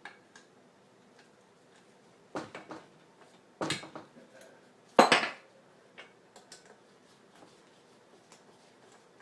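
Several sharp metal clinks of tools and small engine parts being handled and set down on a work table, the loudest about five seconds in, followed by a few lighter ticks.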